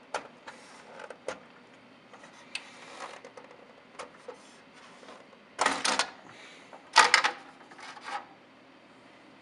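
Ribbon-cable connectors being worked loose and pulled from the header sockets of an Andover Controls AC256M circuit board: scattered small plastic clicks, then two louder clattering rattles a little over halfway through as the board is lifted off its mounts.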